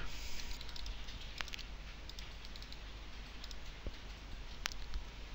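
A few faint clicks from a computer mouse and keyboard, scattered through, the clearest about a second and a half in and near the end.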